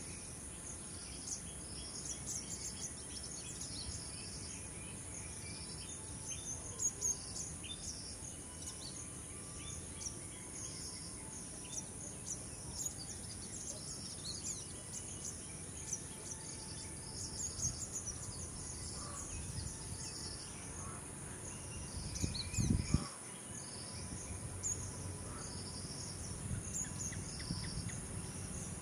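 Insect chorus: a steady high-pitched drone with a pulsing insect call repeating about once a second, and scattered short bird chirps over it. About three quarters of the way through, a brief low rumble rises over the chorus for about a second.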